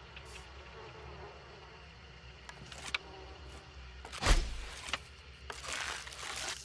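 Hunting bow being shot: one sharp, loud thump with a low boom about four seconds in, followed by a rustling hiss near the end.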